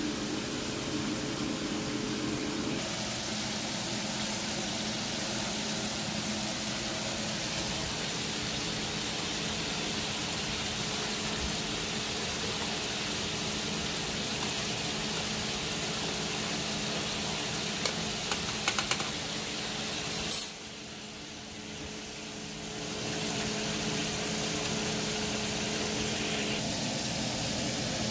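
Steady sizzling hiss of food frying in hot oil on a stovetop, with a low steady hum under it. A few light clicks, like a spoon against a pot, come about two-thirds of the way through, and the hiss drops away for a couple of seconds soon after before returning.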